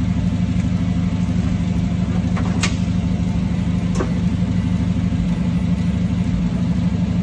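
An engine idling steadily, with two short clicks about two and a half and four seconds in.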